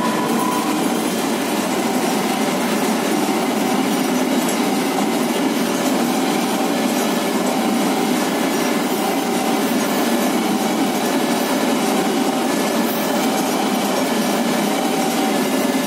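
Freight train of Pertamina tank wagons rolling through a level crossing: a steady rumble and clatter of steel wheels on the rails. Over it, the crossing's warning alarm repeats short tones about once a second.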